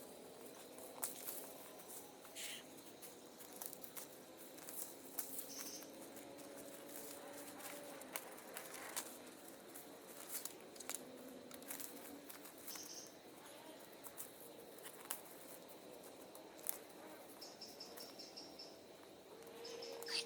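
Faint woodland sounds: scattered small clicks and rustles, with short high bird chirps a few times and a quick trill of notes near the end.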